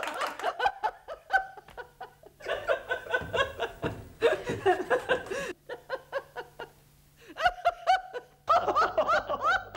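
A woman laughing loudly and without restraint, an unbridled, explosive laugh, heard in several short excerpts spliced one after another with a brief lull in the middle.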